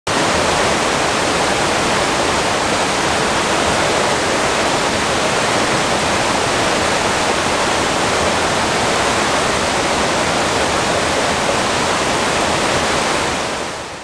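River water rushing steadily, a constant even hiss that fades out near the end.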